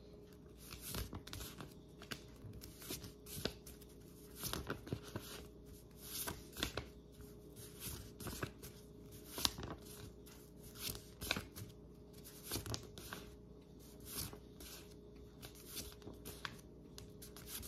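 A stack of cardstock letter flashcards flipped one card after another, each a faint brushing swish, about one a second at an uneven pace.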